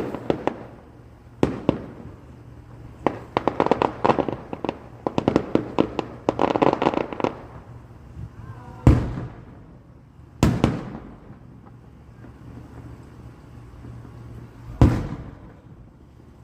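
Fireworks going off: a few sharp bangs, then a quick run of crackling pops, then three heavy booms spaced a few seconds apart, each rolling away in a long echo.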